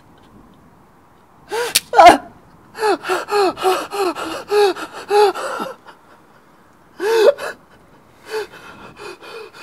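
A man gasping and sobbing in panic. There is a sharp cry about two seconds in, then a run of about ten quick, pitched, sobbing gasps, one more cry about seven seconds in, and weaker shaky breaths near the end.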